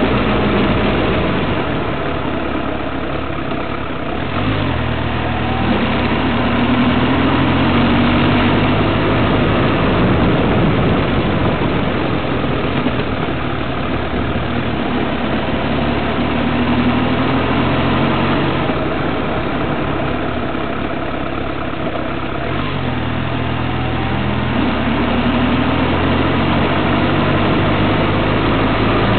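Engine of a moving vehicle running under way, its pitch rising several times as it speeds up and dropping abruptly now and then, with road and wind noise throughout.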